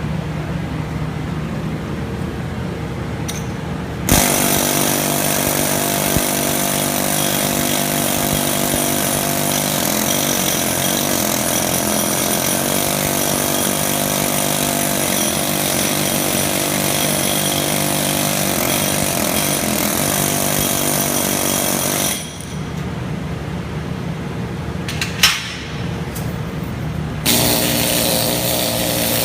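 Pneumatic needle gun or peening hammer rattling hard against a fresh weld deposit, running steadily for a long stretch after starting a few seconds in. It stops, there is a single sharp knock, and it starts again near the end, over a steady machine hum.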